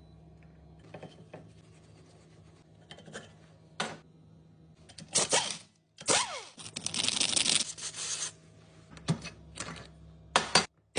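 Clicks and metallic clinks of alternator parts and tools being handled on a bench, with a low steady hum underneath. A hissing noise about two seconds long comes about six seconds in, opening with a falling tone.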